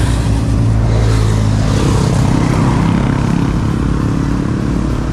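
A convoy of motorcycles passing, their engines running together in a loud, steady drone that eases off slightly near the end.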